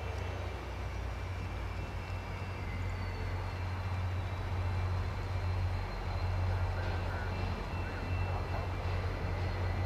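VIA Rail F40PH-2 diesel locomotive's EMD 16-cylinder two-stroke engine running with a steady low drone as the train rolls slowly in, growing a little louder as it nears. A faint high tone slides down in pitch over the first few seconds.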